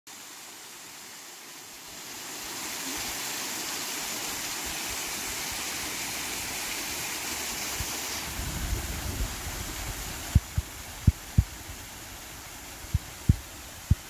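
Small waterfall and mountain stream splashing steadily. In the second half, a few low rumbles and then a series of sharp low bumps on the microphone, louder than the water.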